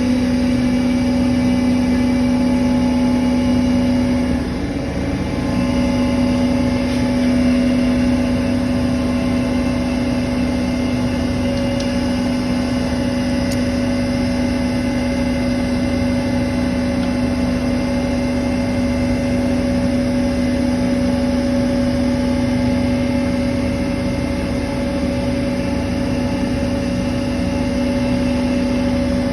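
Bitzer refrigeration compressor running steadily during a refrigerant gas charge: a constant mechanical hum with a strong steady tone, dipping briefly about four seconds in.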